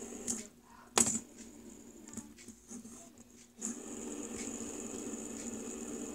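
Fidget spinner whirring on its bearing on a wooden table, with several sharp clicks as it is flicked, the loudest about a second in. From about three and a half seconds in it spins steadily with a faint regular ticking.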